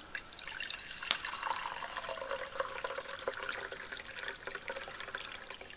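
Water poured in a thin, steady stream into an enamel mug, filling it to the brim.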